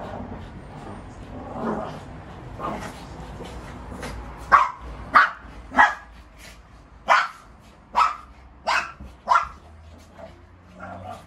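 Shih tzus barking while play-fighting: a few quieter sounds at first, then seven sharp barks over about five seconds, starting about four seconds in.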